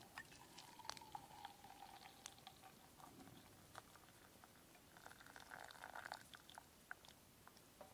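Water being poured into a stainless steel gooseneck drip kettle: a faint trickling and splashing stream, with small drips and clicks throughout.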